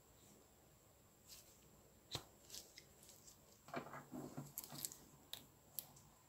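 Rusted Knipex side cutter being worked in a steel bench vise: scattered faint metallic clicks, with a gritty scraping and creaking run about four seconds in as the stiff, rusted joint is forced, then two more clicks near the end.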